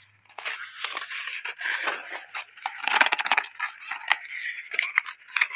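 Rustling and scraping of a phone's cardboard box and paper inserts being handled, with small taps and clicks, loudest about three seconds in.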